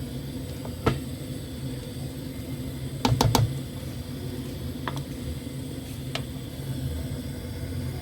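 Several light clicks and knocks, with a quick run of three or four just after three seconds in, over a steady low hum.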